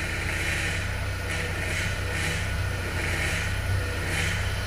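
Ford Fiesta 1.0 Zetec Rocam engine idling, with a hissing, whining noise from the hydraulic power steering pump that repeatedly swells and fades. The steering is heavy, and a fault inside the pump is the first cause suspected.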